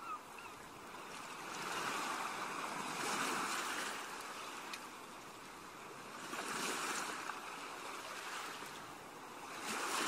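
Sea waves washing onto the shore: a steady rush of surf that swells and falls back three times.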